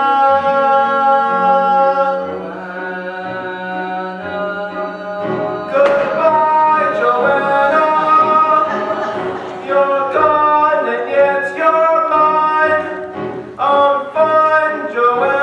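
Musical theatre singing from the stage over soft pit orchestra accompaniment. A held sung note fades about two seconds in, a low steady note carries a quieter stretch, and from about six seconds in a voice sings new phrases with vibrato, changing pitch.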